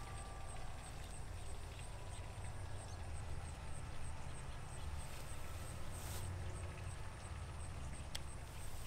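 A steady high insect chirp repeating about four times a second over a low rumble, with a short hiss about six seconds in and a few faint clicks.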